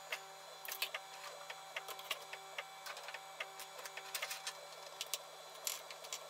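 A 3D printer running, its stepper motors singing in short steady-pitched notes that change every fraction of a second. Over it come light clicks and clatter as utility knives, pliers and pencils are dropped into a plastic holder.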